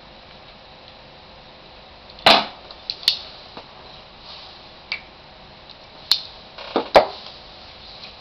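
Sharp metallic clicks and clacks of a 1911 pistol being handled during reassembly, about half a dozen at irregular intervals starting about two seconds in.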